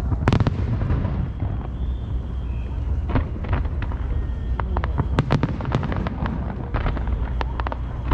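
Aerial fireworks shells bursting: a sharp bang just after the start, then scattered bangs and crackles, thickest around five seconds in, over a steady low rumble.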